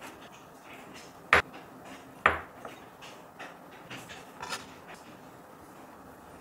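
Two sharp clacks of cookware and utensils being handled on the kitchen counter, about a second apart, the second ringing briefly; then a few lighter clicks and soft handling sounds.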